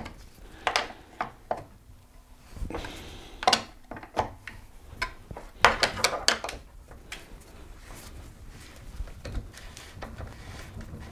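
Scattered metal clicks and clinks of an 8mm Allen wrench being handled and fitted into a bicycle crankset's bolt, with a short rustle about three seconds in.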